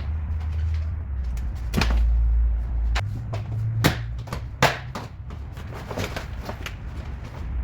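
A few sharp knocks and clicks, as of things being handled and set down, over a low steady rumble.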